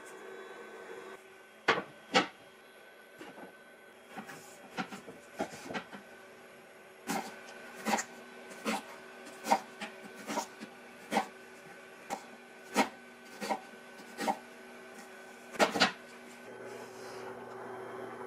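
Kitchen knife slicing an onion on a wooden cutting board: about a dozen sharp knocks of the blade on the board, roughly one every second or a little faster, after a couple of louder knocks and some softer irregular ones earlier. A steady faint hum runs underneath.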